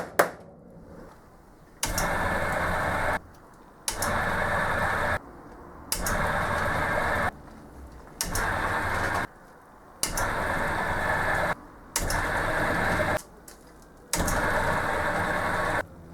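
Electric drill run in seven short bursts with brief pauses between them, boring out a stripped tapped hole in a Zamac (zinc alloy) lathe carriage casting.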